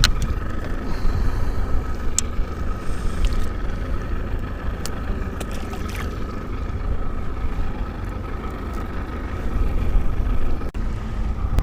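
Wind rumbling on the microphone on an open fishing boat, with a faint steady motor whine and a few light clicks.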